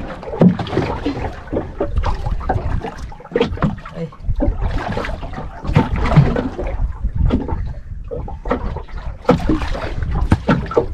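Sounds of a small boat at sea: a rumble of wind and water with irregular knocks and splashes against the hull, while a hooked fish is being brought up from deep water.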